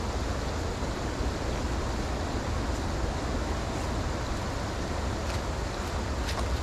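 Steady rushing of a shallow flowing creek over rocks, with a low rumble underneath and a couple of faint knocks near the end.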